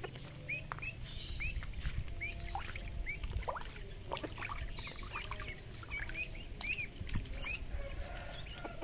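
Young domestic ducklings peeping, short high arched calls every second or so, over a steady low rumble and faint clicks.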